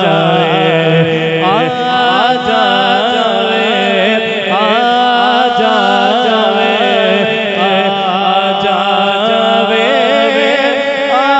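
A man's solo voice singing a Punjabi naat, a devotional poem in praise of the Prophet Muhammad, into a microphone. The melody moves in long held notes with ornamented, winding turns.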